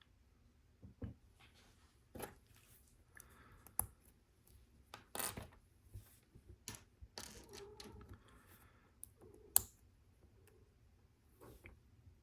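Small plastic LEGO pieces clicking and tapping as they are handled and fitted, in scattered irregular clicks with one sharper click about two-thirds of the way through.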